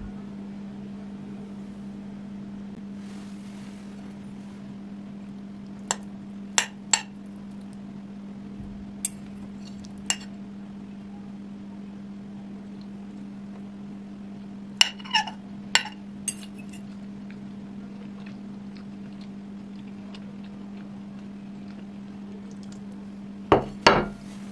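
Metal fork clinking and tapping against a ceramic plate while cutting into a piece of baked casserole, in scattered sharp clinks with a cluster in the middle and the two loudest near the end, over a steady low hum.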